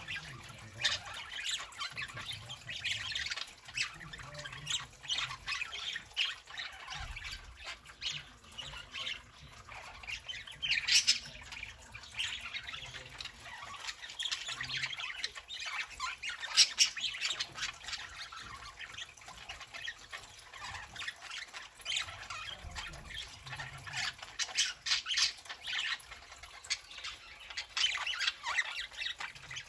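Budgerigars chattering: a continuous stream of warbles and chirps, broken by a few louder sharp squawks.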